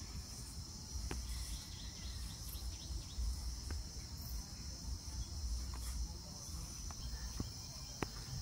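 Steady high-pitched drone of insects, over a low rumble, with a few sharp clicks, the sharpest near the end.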